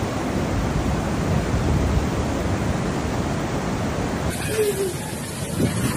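A steady rushing noise of floodwater, as recorded on a phone. About two-thirds of the way through, the sound changes abruptly, and a brief wavering tone follows.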